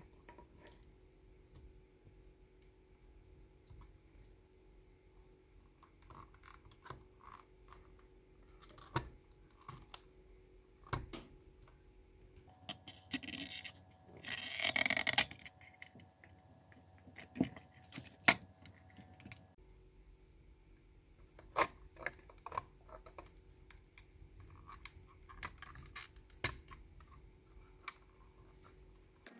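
Small parts being handled at a workbench: scattered light clicks, taps and scratching of plastic and metal. A short rush of scrubbing or brushing noise comes about halfway through.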